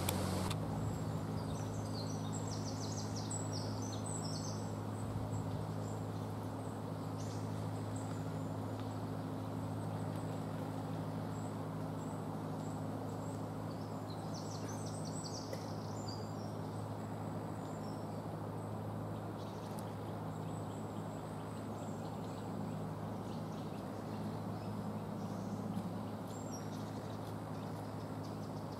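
Steady outdoor background hiss over a constant low hum, with faint chirps of small birds in two clusters, one a second or so in and one about halfway through.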